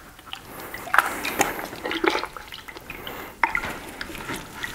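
Oily foam air filter being squeezed and worked by hand in a bucket of liquid air filter cleaner: irregular wet squelches and splashes of liquid.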